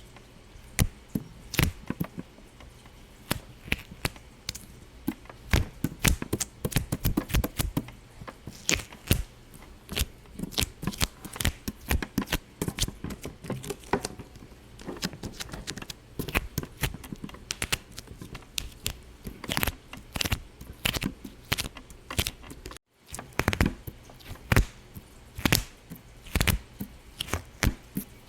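Rapid, irregular crackle of small sharp pops, several a second, with a brief break about three-quarters of the way through.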